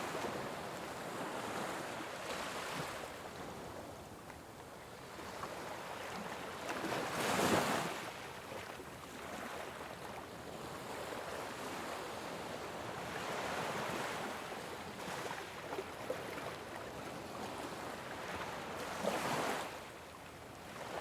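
Ocean waves washing on a shore, a steady surf hiss with two louder waves breaking, one about a third of the way in and another near the end.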